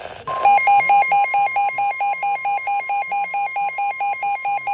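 NOAA Weather Radio warning alarm tone, a steady tone near 1 kHz, starting about a quarter second in. A weather radio receiver's own alert beeps over it, about four times a second.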